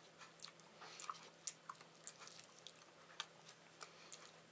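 Faint chewing of fried pink salmon: irregular small mouth clicks and smacks.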